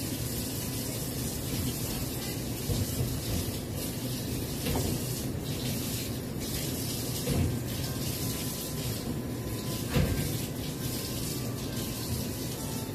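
Kitchen tap water running into a sink while things are washed, with a few short clunks, the loudest about ten seconds in.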